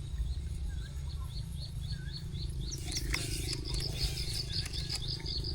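Outdoor ambience: a rapid series of short high chirps, a few a second, quickening about halfway through, over a steady low rumble.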